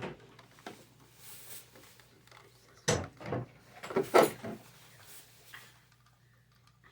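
A few sharp clicks and knocks of car air-vent pieces being handled while trim strips are fitted onto them. The loudest is a short cluster about four seconds in.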